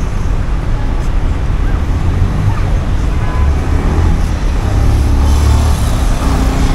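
Road traffic passing through a busy intersection: a steady low rumble of car engines and tyres that grows louder from about three and a half seconds in.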